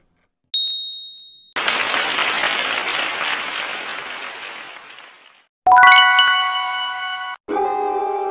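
Quiz-game sound effects: a single high ding as the timer runs out, then a burst of applause that fades over about four seconds as the right answer is shown. A bright bell chime rings out after the applause, and music starts just before the end.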